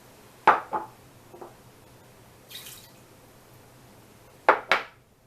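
Thick tomato paste being knocked off a spoon into a pan of sauce: two quick wet plops about half a second in and two more near the end.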